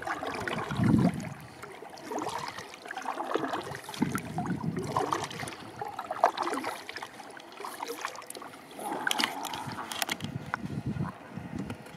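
Kayak paddle strokes dipping and splashing in the water, with water lapping and gurgling around the hull, coming in uneven bursts every second or two.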